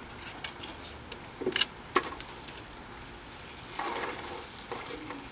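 A few sharp clacks and knocks, the loudest about two seconds in, then a brief rustling noise near the four-second mark, as a bucket and a plastic bag are handled.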